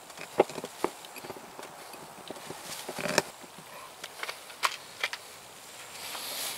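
Small cucumbers clicking and knocking against a glass jar as they are pressed in by hand, with some rustling of herb leaves; the clicks come irregularly, several sharp ones about half a second in and a brief rustle around three seconds.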